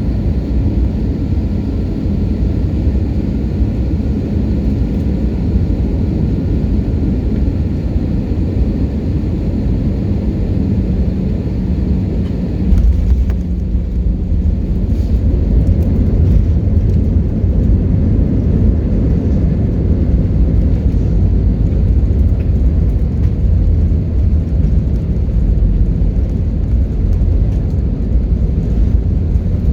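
Airbus A320 cabin noise during landing. A steady low rumble with faint engine tones, then a sudden bump about thirteen seconds in, after which a heavier rumble follows: touchdown and the roll along the runway.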